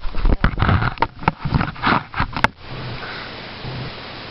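A person sniffing among irregular noisy sounds, then a single sharp click about two and a half seconds in, after which only a faint steady low hum remains.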